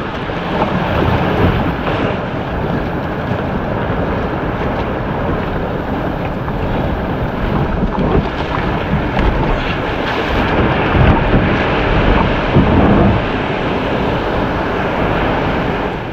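Breaking surf and water rushing around a sea kayak's hull as it is paddled in to the beach, with wind buffeting the microphone. The wash surges louder in the second half.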